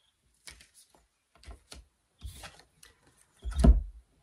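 An oracle card deck being shuffled and handled, with short card flicks and rubs several times, then a louder knock near the end as the deck goes down on the table.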